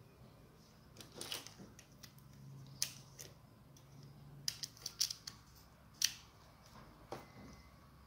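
Light metallic clicks and scrapes from a car ignition lock cylinder and its key being handled. A quick run of clicks near the middle comes as the key is pushed in over the wafer tumblers, and a sharper single click follows about six seconds in.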